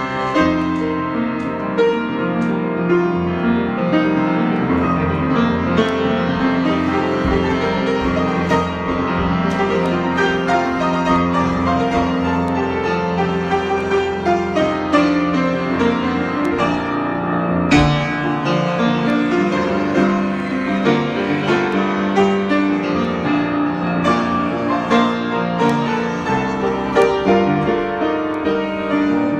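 Solo piano improvisation, played continuously with many held, overlapping notes.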